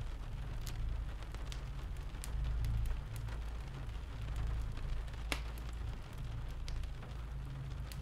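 Steady rain ambience with a low rumble, with sharp crackles and pops of a wood fire in a fireplace scattered through it, one sharper crack about five seconds in.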